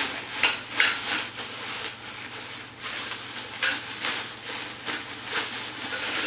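Crinkling plastic packaging and light clinks of metal stand parts being unpacked and handled, in a string of irregular rustles.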